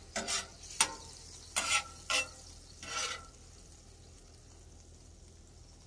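Metal spatula scraping and turning chicken pieces on a steel Blackstone flat-top griddle: about five quick scrapes in the first three seconds, with the food sizzling faintly underneath.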